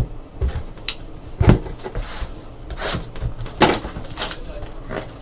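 Trading cards and packs being handled on a table: a sharp knock at the start, a low thump about a second and a half in, then several short rustles.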